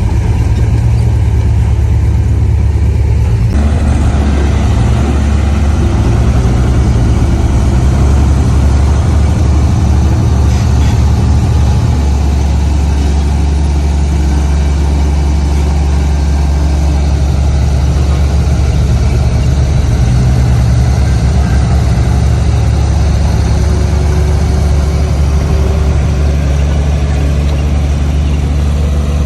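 Heavy diesel engine of earthmoving machinery running continuously, working harder from about three and a half seconds in.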